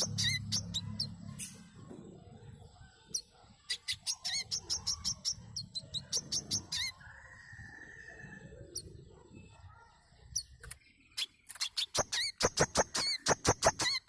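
Burung manggar, a small sunbird, calling in quick trains of short, high, sharp chirps. The calls thin out in the middle and return near the end as a fast, dense run of notes.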